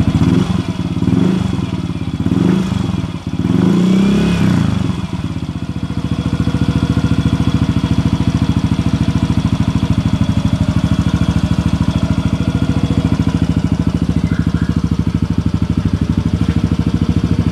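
Yamaha Mio i 125 scooter's single-cylinder four-stroke engine through a JVT V3 adjustable exhaust with its valve set full open. The throttle is blipped three times in the first five seconds, then the engine settles into a steady idle, which cuts off at the end.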